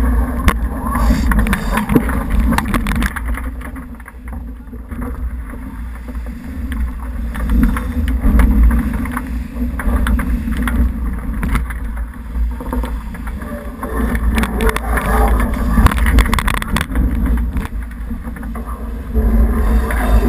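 Wind buffeting the microphone in a low, gusting rumble over water rushing and splashing along the hull of a J80 racing sailboat sailing fast and heeled in a strong breeze. Irregular sharp knocks come through the rush.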